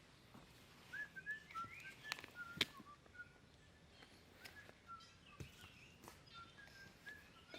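Birds chirping faintly in short, high notes scattered throughout, with a few sharp clicks among them.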